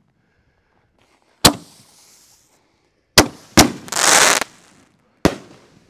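Consumer aerial firework shells from a 12-shell Giant Panda set going off: four sharp bangs at uneven intervals, one followed by nearly a second of hissing crackle.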